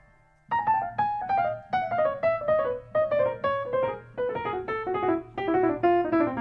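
Jazz piano recording playing back: after a brief near-silence, a quick run of single piano notes starts about half a second in and steps downward in pitch.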